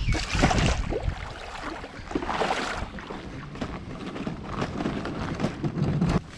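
Water splashing and sloshing around a plastic fishing kayak's hull as it is brought into the shallows, loudest about half a second in and again around two and a half seconds in.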